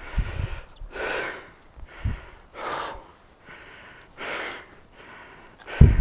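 Dog breathing hard after running: loud, noisy breaths close to the microphone, about one every second, with a few low bumps, the heaviest near the end.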